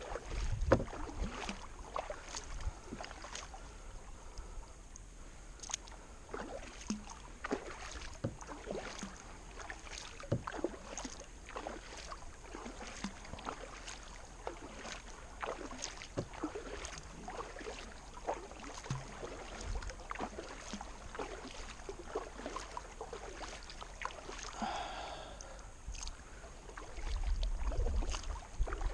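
Kayak paddle strokes against a river current: blades dipping and splashing, water dripping off the paddle, in an irregular stream of small splashes and ticks.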